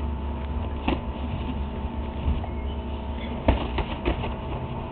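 Boxing gloves landing during sparring: a sharp slap about a second in, then a cluster of slaps around three and a half seconds in, the first of these the loudest, over a steady low rumble.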